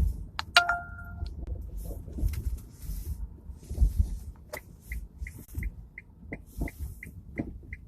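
A rapid series of short, high electronic beeps, about three a second, starting about halfway through, over a low steady rumble. A brief pitched tone sounds about half a second in.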